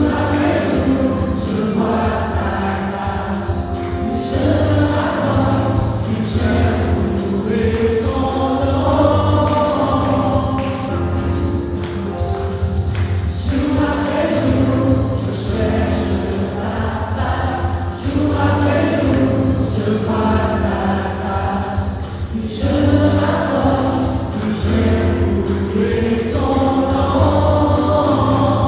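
Live worship song in French: women's voices singing a melody into microphones over a Nord stage piano accompaniment with sustained low notes.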